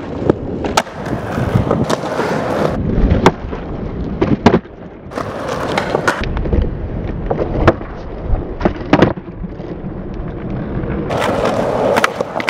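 Skateboard rolling on concrete, with the sharp snaps of nollie flips being popped off the nose and the clacks of the board landing, several times over.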